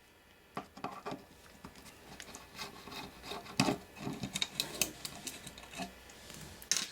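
Hands-on disassembly noise: scattered sharp clicks, taps and short scrapes of a screwdriver, screws and a circuit board being worked out of a metal radio harness box, with a louder clatter about halfway through and another near the end.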